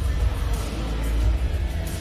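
Instrumental music with deep, sustained bass notes.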